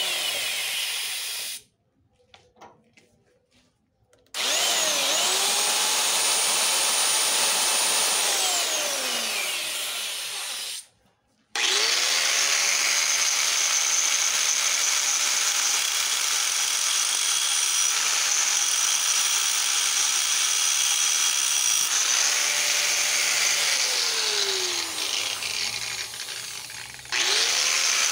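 Electric drill boring holes through a truck's steel chassis crossmember, run in long bursts: the motor's whine climbs as the trigger is squeezed and winds down as it is let go, with short pauses between holes.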